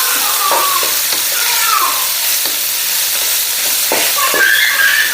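Food frying in a hot pan, a steady loud sizzle, while it is stirred with scraping against the pan.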